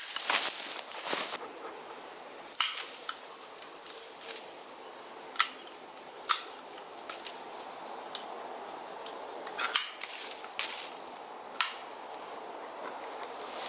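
Hand pruners snipping through wheat stalks: a string of sharp clicks at irregular intervals, a second or more apart, with rustling of the stalks at the start and again near the end.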